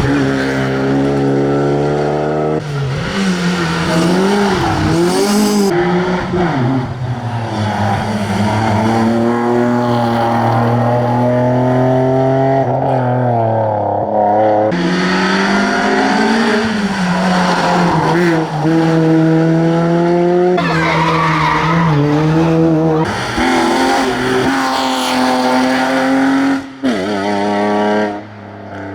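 Classic rally cars at full throttle on a tarmac stage, one after another: engines revving up and dropping back again and again as they change gear and brake for corners.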